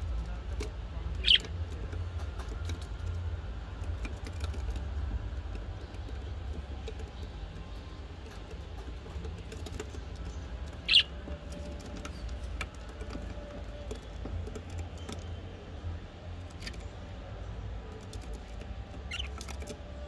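Budgerigars giving three short, sharp chirps, about a second in, near the middle and near the end, over faint scattered clicks and a steady low rumble.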